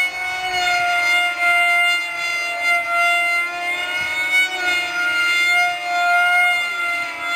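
Steady, high-pitched whine of RC model airplane motors flying a combat dogfight, the pitch wavering slightly as the planes turn.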